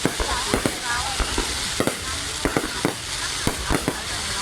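Fireworks display going off: irregular sharp bangs and pops, several a second, over a steady crackling hiss.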